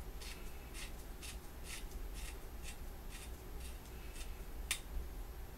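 Nitrile-gloved hands turning and rubbing a small cylindrical metal part of a holographic sight: faint short rasps about twice a second, with one sharper click near the end.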